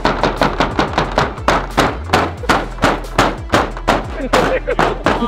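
A hammer striking quickly and repeatedly at the edge of a board wall faced with artificial turf, about four blows a second, knocking the side nails loose.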